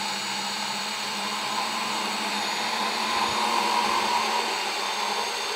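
DeWalt Atomic 20V MAX brushless compact cordless bandsaw running at high speed, its blade cutting through black steel gas pipe in one steady, super smooth pass.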